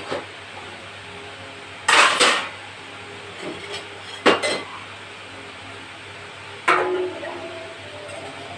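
Stainless steel kitchen utensils clanking as they are taken down from a metal wall rack: three clatters about two seconds apart, the first the loudest, the last ringing briefly.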